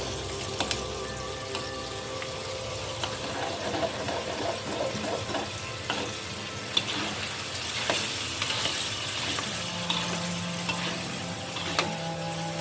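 Food sizzling in a hot pan while being stirred, with occasional sharp taps of the cooking utensil against the pan.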